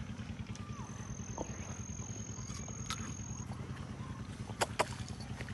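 An engine running steadily with a low, even throb, with two short clicks near the end.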